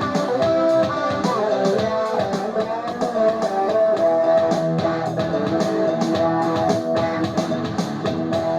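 Music: guitar playing over a steady drum beat.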